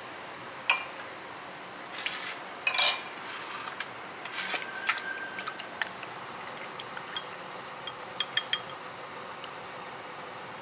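A ladle clinking against bowls as pig's blood and broth are ladled out to make blood pudding: scattered sharp clinks, a busy cluster about two to three seconds in, a short ring about five seconds in, and a quick run of light clinks near the end.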